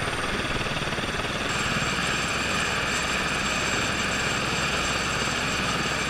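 Helicopter running on the ground, a steady turbine whine over a steady rush of rotor and engine noise.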